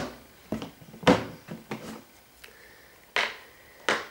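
Handling noise as a blister-packed toy car is picked up: a series of short knocks and rustles, about seven in four seconds, the loudest about a second in.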